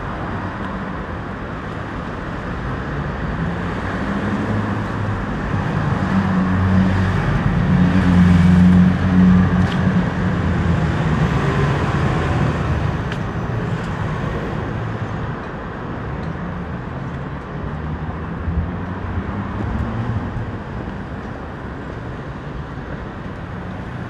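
Road traffic on a city street: a steady wash of passing cars, with one vehicle's engine building up to a loud pass about a third of the way in and then fading away.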